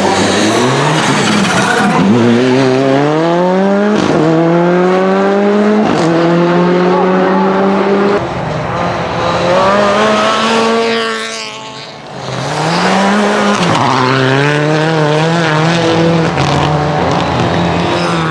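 Renault Clio N5 rally car engine accelerating hard, its pitch climbing through quick upshifts about every two seconds. About two-thirds of the way in it fades briefly, then it comes back and pulls up through several more gear changes.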